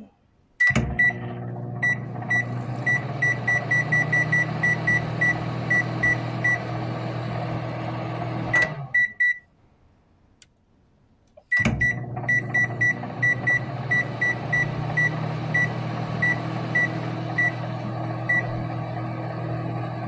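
Hamilton Beach microwave oven running with a steady hum, with a string of short high-pitched beeps that come in quick succession and then spread out. About nine seconds in it stops and goes quiet for about two seconds, then a thunk and it starts running again, with the same run of beeps.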